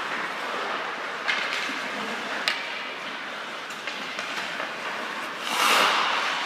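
Hockey skate blades scraping and carving on ice, with a steady hiss and a few sharp clicks of the stick on the puck; a louder scraping rush comes near the end.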